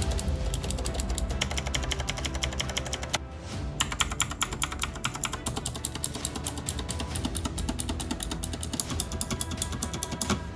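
Fast typing on a Razer BlackWidow Elite mechanical keyboard fitted with G.SKILL Crystal Crown keycaps: a dense run of key clicks with a short pause a little past three seconds in, over background music.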